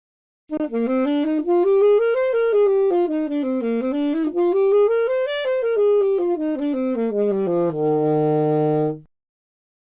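A solo wind instrument plays quick stepwise runs up and down the scale, rising, falling, rising and falling again, then holds one long low note that stops about a second before the end.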